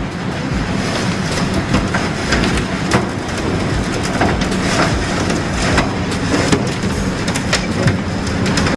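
Strong storm wind blowing hard across the microphone, with a continuous low rumble and many sharp clattering knocks throughout.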